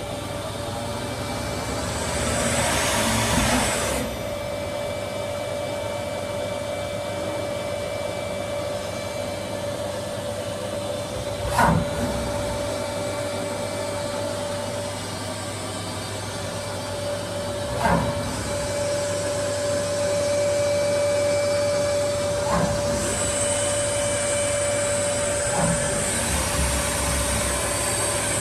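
Colchester Tornado T8M CNC lathe running under power: a steady machine hum with a held whine, a few sharp clunks, the loudest two near the middle about six seconds apart, and spells of hissing near the start and near the end.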